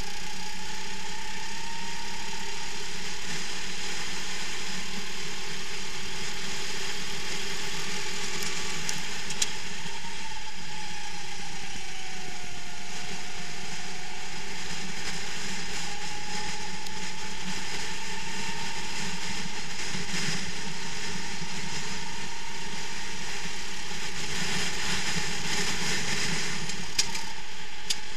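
Racing kart engine running hard, heard from the kart itself. Its pitch sags about a third of the way in, then climbs back and holds steady.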